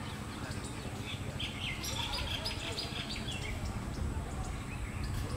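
Small birds chirping: a quick run of short high notes for about two seconds, starting a little over a second in, over a steady low rumble.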